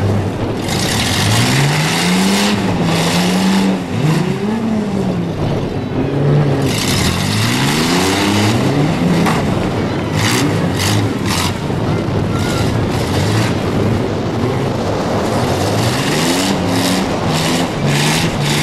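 Demolition derby vans' engines revving up and down over and over as the drivers manoeuvre and ram, with tyres spinning in loose dirt. Sharp knocks come in clusters about ten seconds in, as two vans push into each other, and again near the end.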